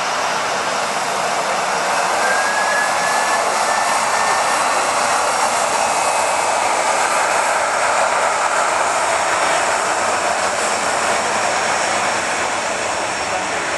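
Jet engines of a taxiing Airbus A320-family airliner, a loud steady rushing hiss. It swells slightly after about two seconds and eases a little near the end, with a faint short rising whistle about two seconds in.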